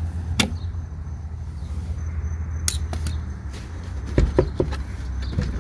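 Needle-nose pliers and fingers working the bumper's plastic retaining tabs: a sharp click about half a second in, another near three seconds, and a quick cluster of knocks and clicks a little past four seconds, over a steady low hum.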